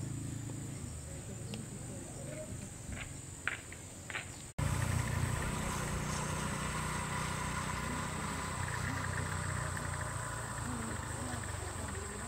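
Insects shrilling in a steady, high, even drone over a low background hum, with a few short high chirps about three to four seconds in. The sound drops out for an instant about four and a half seconds in, and the drone is louder afterwards.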